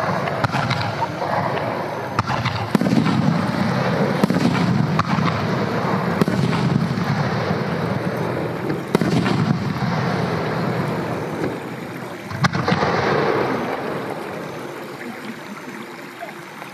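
Aerial firework shells bursting: several sharp bangs a few seconds apart over a long rolling rumble of echoes. The sound dies down near the end.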